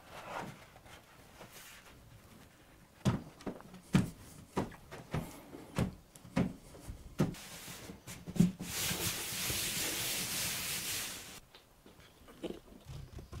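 About ten dull knocks, roughly two a second, as large paper sheets are handled and pressed down onto a board on the floor. They are followed by a steady hiss of about three seconds that cuts off suddenly.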